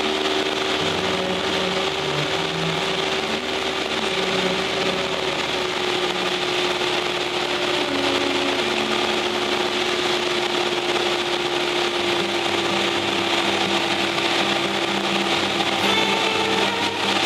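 Cessna 172's engine and propeller droning steadily in flight, heard inside the cabin, with a constant hum that sags slightly in pitch partway through.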